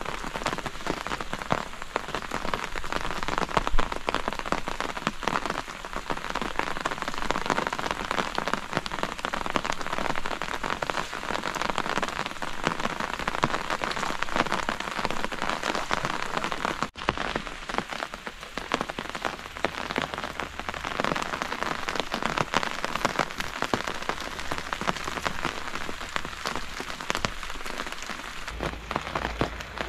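Steady rain with a dense patter of individual drops close by. There is a momentary cut-out a little over halfway through.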